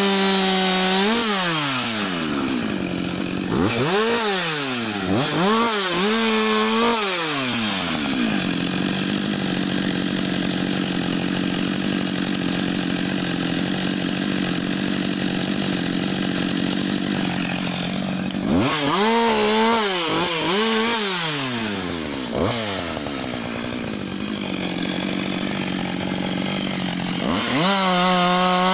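Husqvarna 560 XP two-stroke chainsaw revved in short bursts several times, each dropping back. In the middle it holds steady at high revs for about ten seconds.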